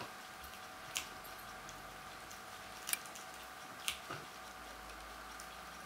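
Shetland sheepdog gnawing on a large dried bone: four sharp clicks of teeth knocking and scraping on the bone, spaced a second or two apart, over a faint steady hum.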